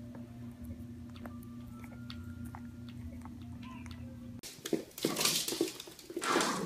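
A puppy chewing a treat, with small faint crunches and clicks over a steady low hum. About four and a half seconds in this cuts to several louder, rough noises from two small dogs playing, the loudest near the end.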